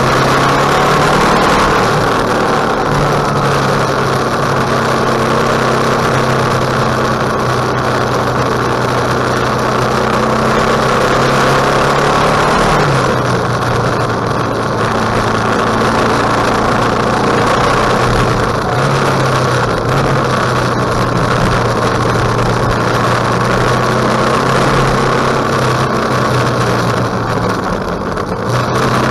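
KTM 1050 motorcycle's V-twin engine running under way at steady revs, its pitch stepping up and down a few times, over a steady rush of wind noise.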